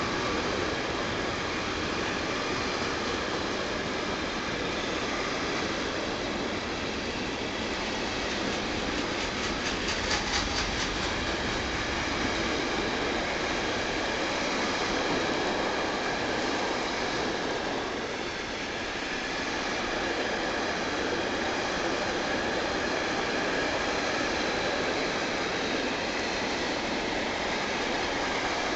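Container freight train passing at speed: a steady noise of wagon wheels running on the rails, with a short run of quick clicks about ten seconds in.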